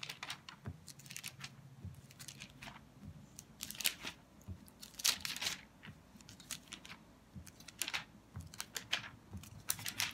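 Thin Bible pages rustling and crinkling as they are leafed through, in short irregular swishes.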